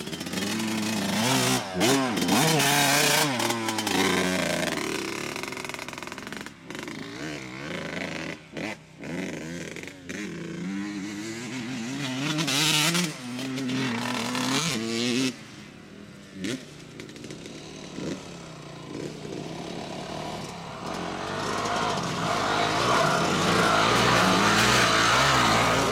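Dirt bike engines revving up and down as they ride the track, the pitch rising and falling with the throttle. Quieter in the middle, then growing louder near the end as a bike comes closer.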